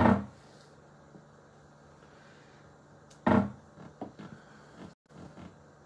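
Two dull thuds about three seconds apart, with a few lighter taps after the second: a hand-held craft stamp being pressed down onto an ink pad and onto paper on the desk.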